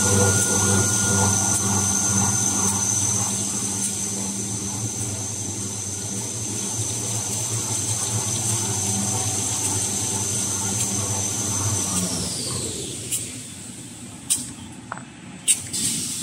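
Kitchen towel paper production line machinery running with a steady high whine over a low hum. About twelve seconds in, the whine falls in pitch and the running noise dies away as the line slows, leaving a few scattered knocks.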